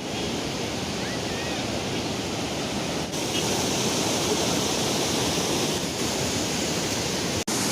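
Steady rush of flowing water, as at a dam's outflow, with a momentary dropout near the end.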